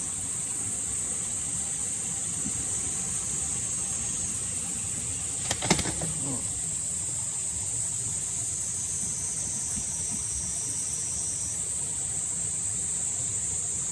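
Steady high-pitched insect drone over a low background rumble, with a brief burst of sharp clattering about five and a half seconds in.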